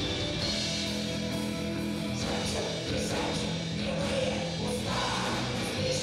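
Doom metal band playing live: distorted electric guitars, bass, drums and keyboards, with vocals coming in about two seconds in.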